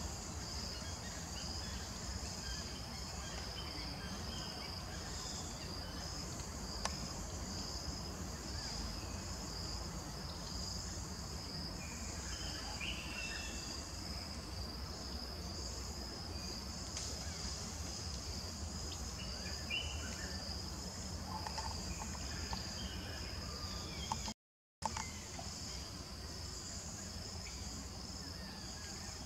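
A steady, high-pitched chorus of insects buzzing in forest, with a low background rumble and a few short bird chirps now and then. The sound drops out for a moment about three-quarters through.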